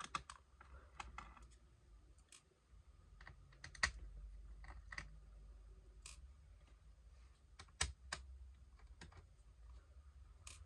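Scattered small clicks and taps of hands and tools working inside an opened laptop, at uneven intervals and loudest about four and eight seconds in, over a faint low hum.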